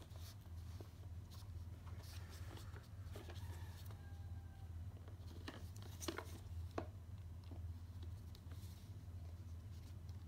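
Hands handling and turning a boxed GoPro Hero 8 Black: light rustles and scattered clicks of the plastic case and cardboard sleeve, with the two sharpest clicks about six and seven seconds in. A steady low hum runs underneath.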